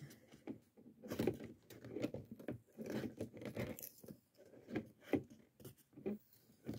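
Paper masks being peeled off a sticky Cricut cutting mat by hand: faint, irregular crackling and rustling of paper coming away from the adhesive, with small clicks.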